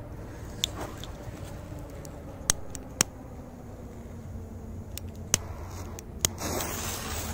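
Torch lighter's igniter clicking several times with short pauses between. About six seconds in, a steady hiss starts as the flame catches and the firecracker's fuse is lit.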